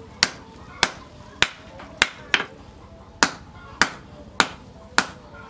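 Hand hammer striking a red-hot steel wrench on a post anvil: about nine steady forging blows, roughly one every half second or so with a short break midway, each leaving a brief metallic ring.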